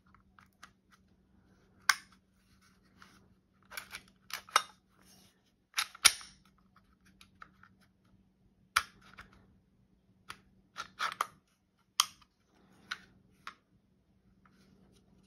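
Sharp metallic clicks and clacks of a Hi-Point C9 9mm pistol's action being worked by hand, with the slide pulled back and let go; about fifteen separate clicks, some in quick pairs and clusters.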